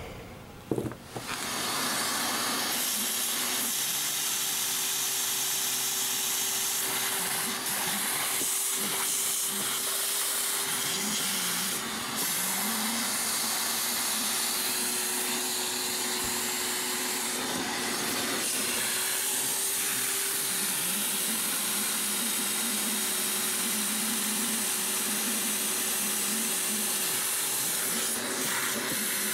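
Shop vac switched on about a second in and then running steadily, a loud rushing hiss with a constant motor whine, sucking water out of a clogged air-conditioner condensate pan and drain lines.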